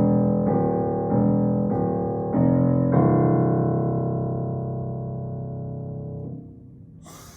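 Piano music: a run of chords changing about twice a second, then a final chord held and slowly fading away, with a brief burst of noise just at the end.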